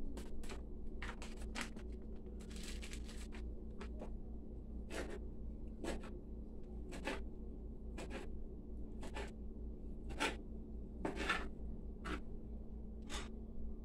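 Knife slicing a hot dog on a plastic cutting board, each cut ending in a sharp tap on the board about once a second. Before the cutting starts, the board is set down with a few knocks and a short scrape. A steady low hum runs underneath.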